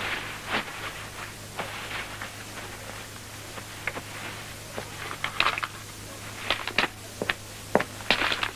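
Irregular light knocks and rustles of papers and small objects being handled at a table, over a steady low hum.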